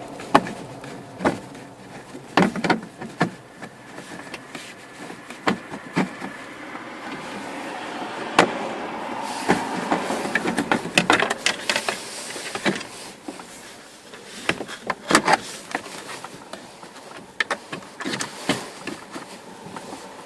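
Hard plastic clicking, knocking and rustling as the dash speaker cover of a 1999 Chevy S10 is handled and worked into place, with irregular sharp knocks spread throughout and a denser cluster in the middle.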